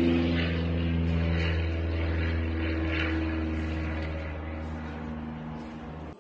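Steady motor drone: a low hum with a few higher steady tones above it, fading slightly toward the end.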